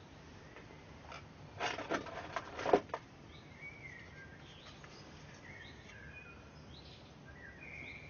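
A short run of clicks and rustling, like something being handled close to the microphone, about a second and a half in, followed by faint, scattered bird chirps in the background.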